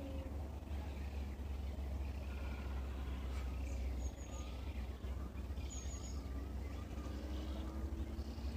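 Several small birds chirping and calling, with a few quick high trills, over a steady low rumble. A faint low tone rises slowly near the end.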